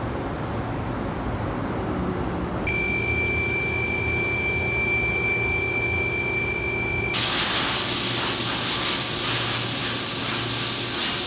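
Machinery running with a low rumble; about three seconds in a steady high-pitched whine with a lower hum joins it. About seven seconds in the whine stops and a much louder, steady spraying hiss starts.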